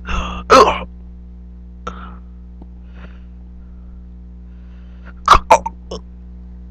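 Short bursts of a person's voice, like grunts or coughs: a couple just after the start and a quick cluster of three or four about five seconds in, over a steady low electrical hum.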